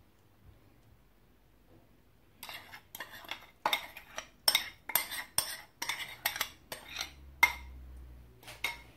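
Metal spoon scraping and clinking against a small bowl while scraping out a seasoning mixture. There is a quiet start, then an uneven run of clinks and scrapes, two or three a second, for the rest of the time.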